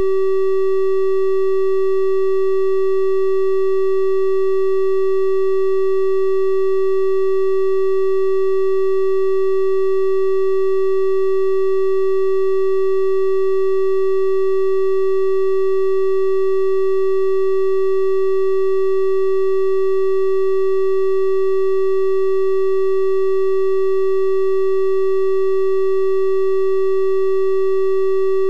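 Synthesised 384 Hz triangle-wave test tone, held steady at one pitch and level, with faint higher overtones.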